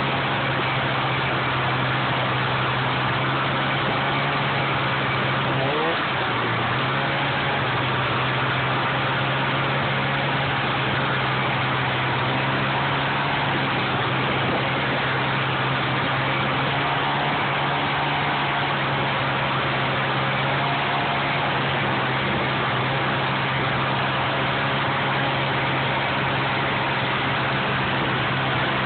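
Snowmobile engine running steadily at trail-cruising speed, heard from the rider's own machine, an even drone with a slight shift in pitch about six seconds in.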